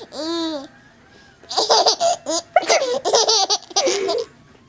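Baby laughing: a short drawn-out voiced note at the start, then, after a brief pause, a longer run of quick bursts of laughter that stops near the end.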